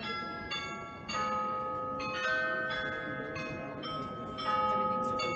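The Rathaus-Glockenspiel on Munich's New Town Hall playing a tune on its tuned bells: one struck note after another, a new one every half second to a second, each left ringing into the next, over a faint crowd murmur.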